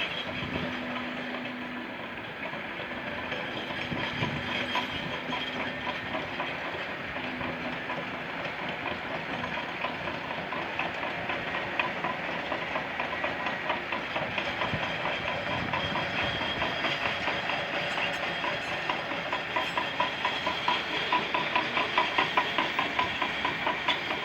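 Bulldozer at work: its diesel engine running under load with the tracks clattering. About halfway through the clatter settles into a regular rhythm of two to three clanks a second.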